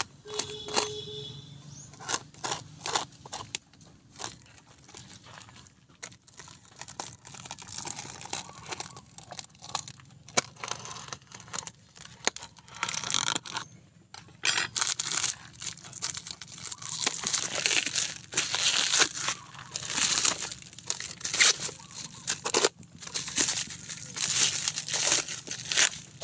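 Plastic wrapping around a new motorcycle tyre being slit with a knife and pulled off, with irregular tearing and crinkling that gets busier and louder about halfway through.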